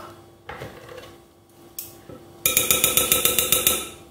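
Metal hand-mixer beaters tapped against the rim of a glass mixing bowl to knock off cake batter. A couple of light clicks come first, then a quick run of about a dozen ringing clinks over a second and a half, starting past the halfway point.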